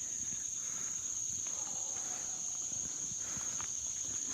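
Steady high-pitched insect chorus with an even drone and no pauses, with faint footsteps beneath it.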